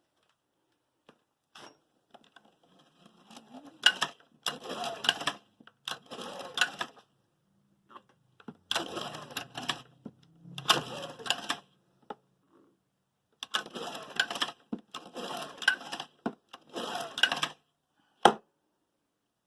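Clattering and scraping from hand work on small mechanical parts. It comes in about seven bursts, each roughly a second long, with short pauses between them, and ends with a single sharp click.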